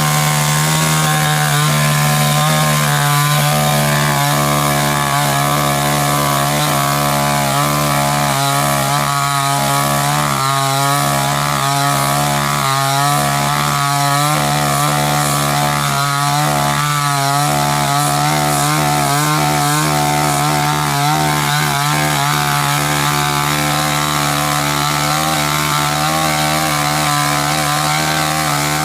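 Chainsaw running at a steady high speed without letting up, cutting through wood.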